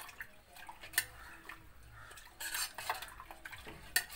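Steel spoon stirring a thin mix of ragi (finger millet) flour, water and milk in a stainless steel saucepan, scraping and clinking against the pan, to work out the lumps of flour before cooking. Sharp clinks stand out about a second in, again midway, and near the end.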